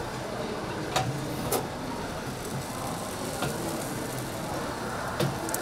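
Steady background hiss of a street-food stall's bread-baking grill, with four short sharp clicks about 1, 1.5, 3.5 and 5 seconds in.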